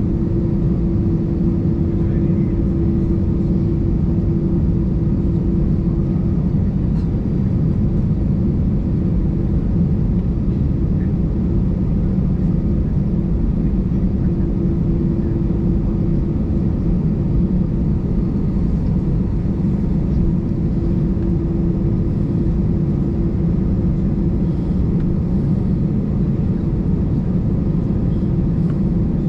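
Airbus A320 cabin noise while taxiing: the engines at idle give a steady low rumble, heard from inside the cabin, with a humming tone that fades out and comes back a few times.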